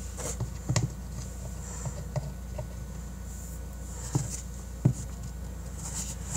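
Someone quietly eating a spoonful of red velvet mug cake: soft chewing and mouth sounds with a few short clicks and knocks, the sharpest about five seconds in, over a steady low hum.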